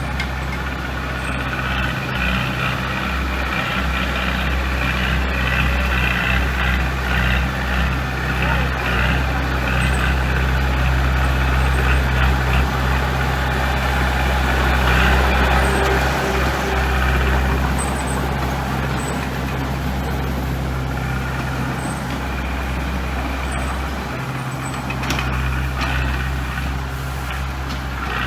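Heavy diesel construction machinery running steadily at work, with a deep engine drone and a dense mechanical clatter over it that grows somewhat louder in the middle.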